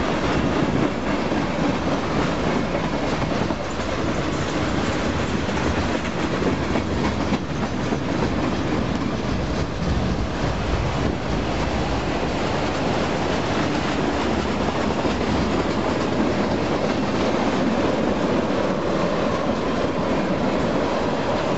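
Mixed freight cars of a long train, boxcars and then tank cars, rolling past close by: a steady loud rumble of steel wheels on the rails, with repeated clicks as the wheels cross the rail joints.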